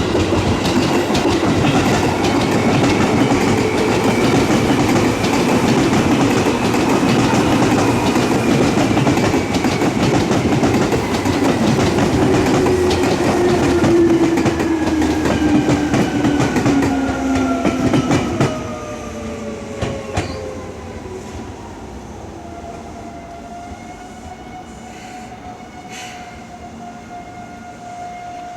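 A Seibu electric commuter train passing over a level crossing, wheels clattering over the rails, with a motor whine that slowly falls in pitch. The train noise drops off sharply about two-thirds of the way through, leaving a quieter rumble and a steady tone.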